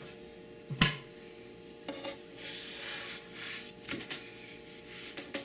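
Wooden lefse turning stick on a lefse griddle: one sharp knock against the griddle near the start, then a longer scraping, rustling stretch with a few light taps as the stick slides under a cooked lefse and lifts it off.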